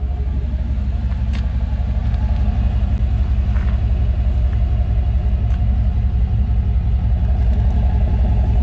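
Chevrolet 305 small-block V8 with throttle-body injection idling steadily, a loud, even low rumble.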